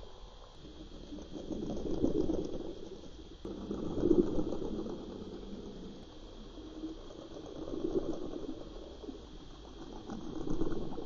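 Koolabung metal blade lure vibrating as it is retrieved, heard underwater: a crackly buzz that swells and fades several times, over a steady faint high hum.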